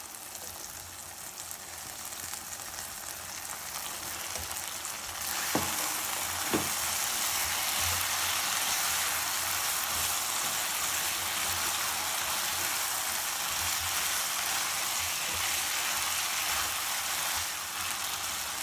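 Chicken, green beans and freshly added carrots sizzling in a hot non-stick pan while being stirred, the sizzle growing louder about five seconds in. Two short knocks come a second apart just after.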